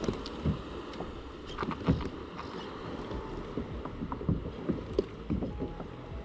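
Water lapping against a kayak hull, with scattered knocks and clunks of gear or a paddle against the hull.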